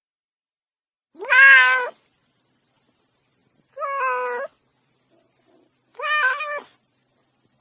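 A kitten meowing three times, about two and a half seconds apart. Each call is high-pitched and lasts under a second, with silence between.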